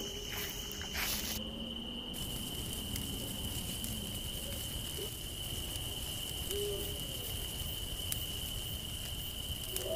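Steady high-pitched chirring of crickets, with a few faint short low calls in the middle.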